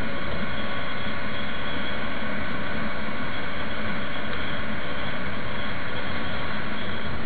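Motorcycle engine running at a steady cruising speed under loud wind noise on the microphone.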